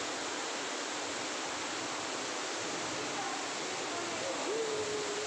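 Steady rushing of an artificial waterfall pouring into a park pond, with a faint short tone that rises and then holds near the end.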